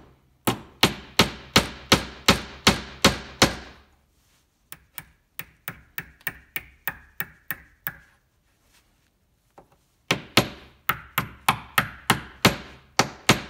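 Claw hammer tapping a brass furniture tack into a pilot hole in the top of a turned wooden chess piece. It goes in runs of sharp blows, about three a second, with softer, quicker taps in the middle and a couple of seconds' pause before the last run.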